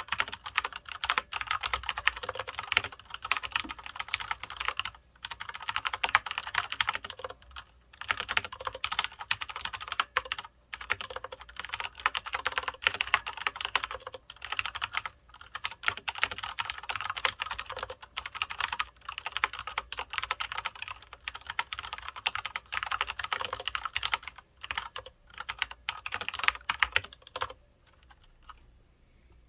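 Continuous fast typing on a Filco Majestouch 2 mechanical keyboard with Cherry MX Brown switches: a dense patter of key clicks and bottoming-out clacks with brief pauses between bursts. The typing stops near the end.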